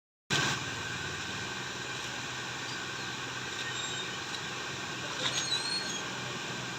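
A steady background hum with no clear rhythm, broken by a brief dropout at the very start and a short cluster of light clicks about five seconds in.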